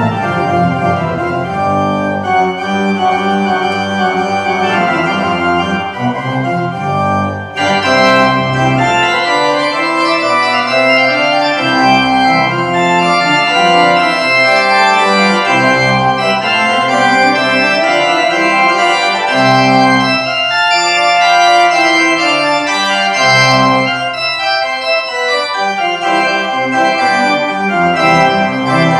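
Church organ played with full chords that change continuously, with a moving bass line. About seven seconds in, the sound grows louder and brighter.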